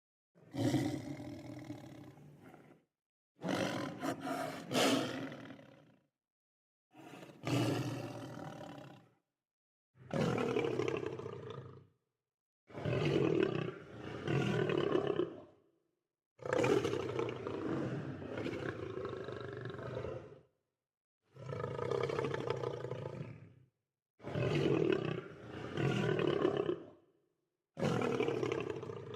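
A lion roaring and growling in about nine separate calls, each two to four seconds long, with complete silence between them.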